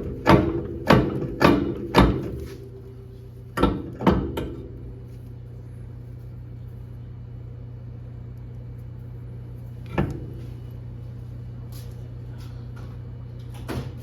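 Hammer blows on metal with a ringing after each, about two a second for the first couple of seconds, then two more about four seconds in. After that a steady low hum, with a single knock near the end.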